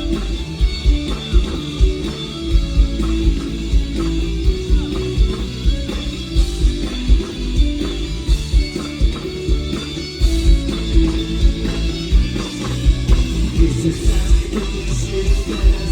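Live rock band playing: drum kit keeping a steady beat under electric guitar, in a passage without clear vocals.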